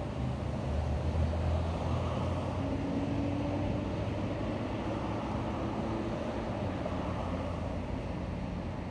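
Steady noise of a car running, heard from inside the car with a window open, with a low engine hum underneath.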